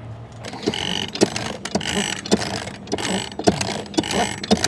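Anchor being hauled up by hand: a windlass or winch being worked with a handle, ratcheting and clanking in a steady rhythm of about one stroke a second, with a short squeak on each stroke.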